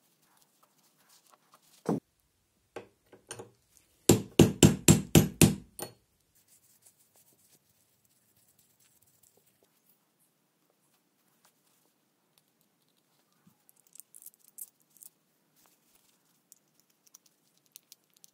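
Small metal speedometer parts being worked by hand on a bench: one sharp knock about two seconds in, then a quick run of about eight loud knocks, about four a second. Light clicks of metal parts being handled follow later.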